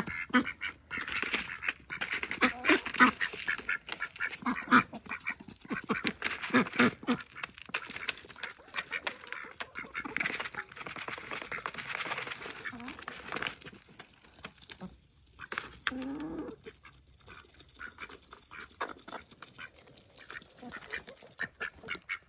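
Ducks quacking now and then while ducks and chickens feed from a plastic trough feeder, their bills pecking at the feed in many quick taps and clicks.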